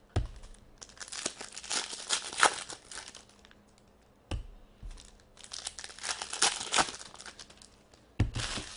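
Upper Deck hockey trading cards sliding and rubbing against one another as a stack is flipped through by hand: two spells of quick rustling, with a few dull knocks between them.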